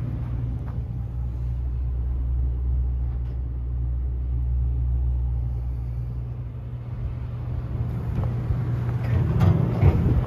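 A Ford F-550's gasoline V10 engine idling steadily, heard from inside the cab. In the last couple of seconds a few knocks and handling sounds rise above it.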